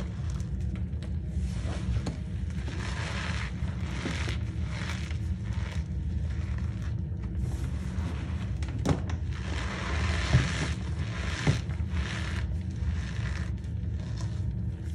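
Handfuls of reformed cornstarch chunks squeezed and crumbled by hand, crunching and squeaking in repeated surges about a second each, with a few sharp cracks near the middle. A steady low hum lies underneath.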